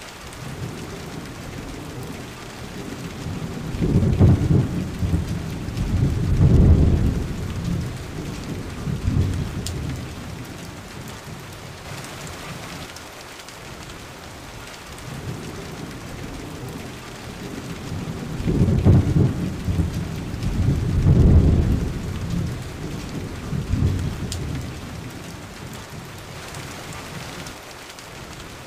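Thunderstorm: steady rain with two long rolls of low thunder, the first starting about four seconds in and the second about eighteen seconds in, each swelling twice before dying away.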